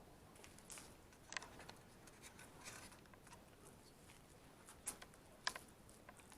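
Near silence: quiet room tone with a few faint clicks and soft rustles, the sharpest click about five and a half seconds in.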